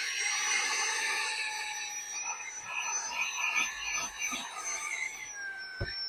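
xCool cordless handheld vacuum cleaner running with a steady high motor whine and a rush of air as its crevice nozzle sucks grit off a car's carpet floor mat. Its pitch dips slightly near the end, followed by a soft knock.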